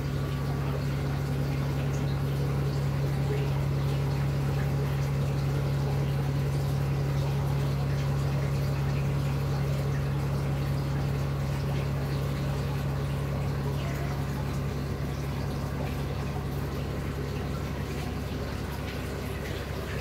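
Aquarium pump running with a steady low hum, with water moving through the tank.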